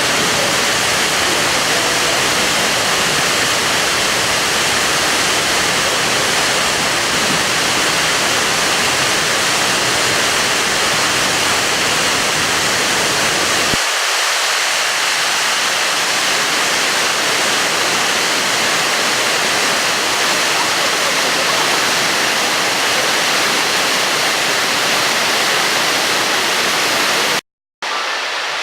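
Fukuroda Falls waterfall rushing steadily. About halfway through, the deep low rumble drops away and leaves a higher hiss. Near the end the sound cuts out for a moment, then returns.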